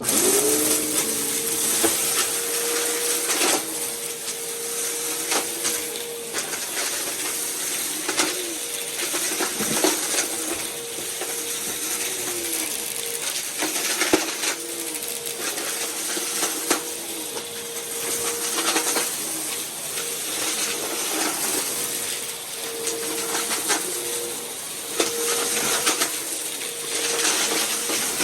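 Bissell vacuum cleaner running with a steady motor whine. Its pitch dips every couple of seconds as it is pushed back and forth over carpet, and it crackles and clicks as it sucks up crunchy debris.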